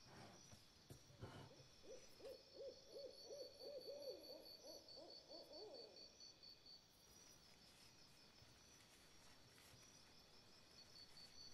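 Faint animal ambience: a quick run of about a dozen low calls lasting a few seconds, over a steady, high, rapidly pulsing chirp.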